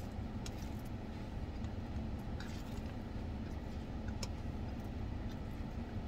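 Steady low rumble of a car idling, heard from inside its cabin, with a few faint clicks and smacks of someone chewing salad.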